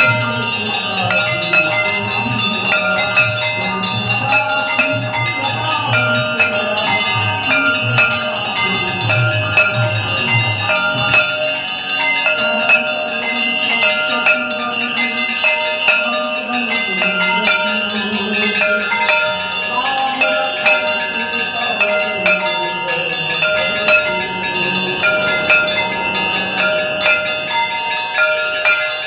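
Temple bells ringing without a break over devotional aarti music with singing voices. A low pulsing part underneath drops out about eleven seconds in.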